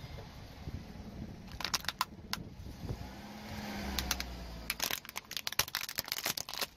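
Car tire rolling slowly onto two plastic toy motorcycles: a low engine rumble, then a quick run of sharp plastic cracks and crunches over the last two seconds as the toys break under the tire.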